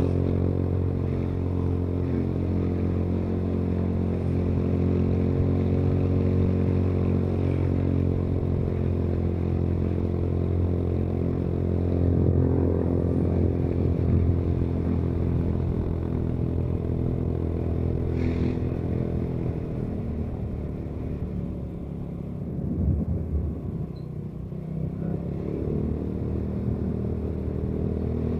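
Motorcycle engine running under way, heard from the rider's seat, its pitch drifting with the throttle. About three quarters through it eases off and drops in pitch, then picks up again near the end.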